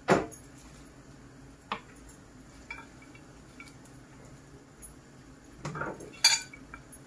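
Glass baking dish and crockery being handled on a countertop: a sharp knock at the very start, a smaller one near two seconds, then a short spell of handling noise ending in a sharp clink about six seconds in.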